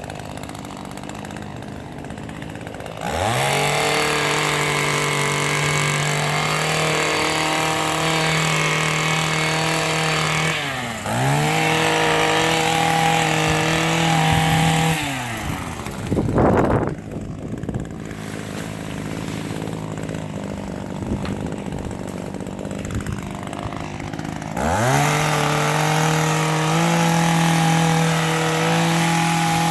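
Echo hedge trimmer's two-stroke engine idling, then throttled up to a steady high rev about three seconds in. It dips briefly, drops back to idle for about ten seconds, and revs up again near the end.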